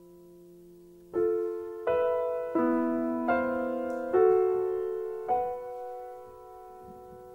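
Solo piano: a held chord dies away, then about six chords are struck in turn, less than a second apart, and the last is left to ring and fade.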